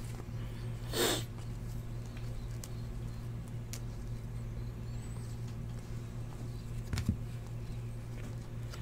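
A stack of trading cards being flipped and slid through by hand: a soft swish about a second in and a few faint card clicks, over a steady low hum.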